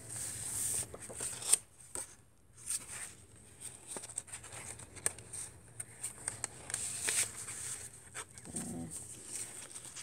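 Paper and card rustling and tapping as hands handle the pages and tucked paper ephemera of a handmade junk journal, with a sharp tap about one and a half seconds in.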